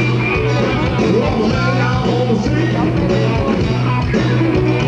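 A live rock band playing loud and steady: electric guitars and bass guitar, with a singer at the microphone.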